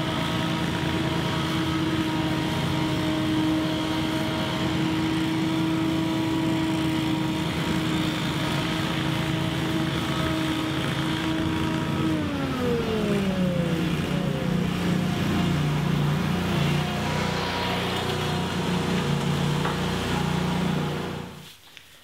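Gas leaf blowers, a backpack blower and a Scag Windstorm ride-on blower, running steadily at high throttle. About halfway through, one engine's pitch falls as it throttles down, and everything fades out near the end.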